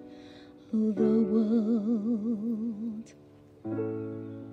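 Woman singing the song's final held note with vibrato, about two seconds long, over ukulele accompaniment; then a last strummed chord rings out and fades.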